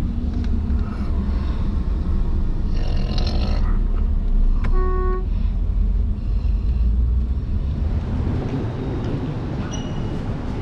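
Steady low road and engine rumble inside a moving car. About five seconds in, a car horn gives one short toot.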